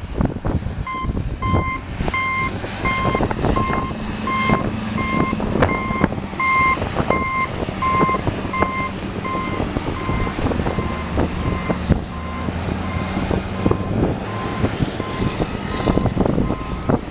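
Backup alarm of a snow-clearing tractor beeping steadily, about three beeps every two seconds, over its running engine and gusting wind on the microphone. The beeping grows fainter after about ten seconds, and a second, slightly higher-pitched beeper comes in near the end.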